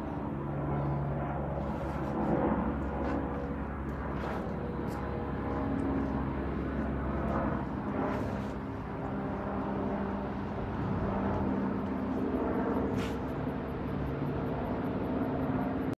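Steady outdoor rumble of road traffic on the highway, with a few faint clicks.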